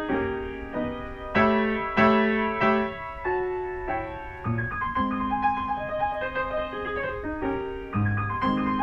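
Acoustic grand piano played solo, a classical piece of quick flowing notes with three loud accented chords about one and a half to three seconds in.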